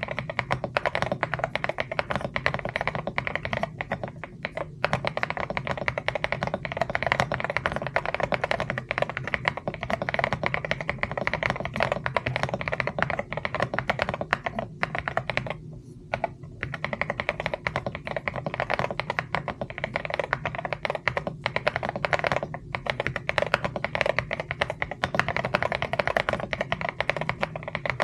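Fast, continuous typing on a mechanical keyboard: a dense stream of key clacks, with a couple of brief pauses.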